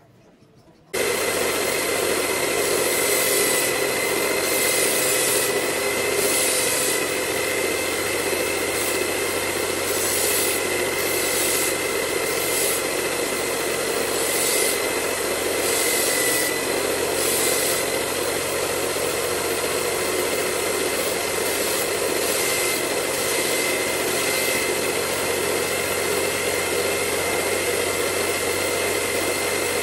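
Corded electric drill driving a homemade belt sander starts about a second in and runs steadily with a constant whine. Every second or so a steel knife blade is pressed against the moving sanding belt, adding short grinding hisses, several of them through the first half and a few more later on.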